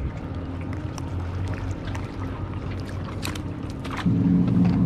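A steady low motor drone, growing clearly louder about four seconds in, with a few sharp clicks over it.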